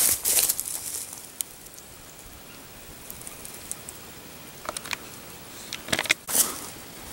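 Footsteps rustling and crackling through grass, with scattered clicks; loudest at the start and again about six seconds in, quieter in between.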